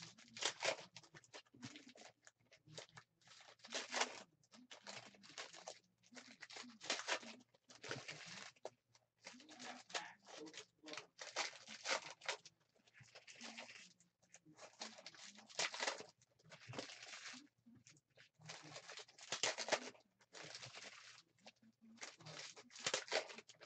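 Foil wrappers of Panini Prizm basketball card packs being torn open and crinkled by hand, in a run of short crackling rips about once a second, with the soft rustle of the cards being pulled out and stacked.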